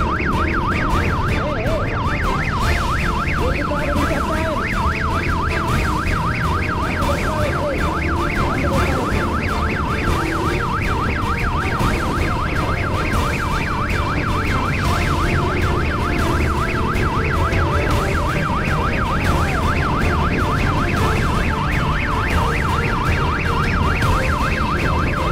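Police motorcycle siren sounding a fast, steady yelp that rises and falls several times a second, over the low engine and wind noise of the moving bike.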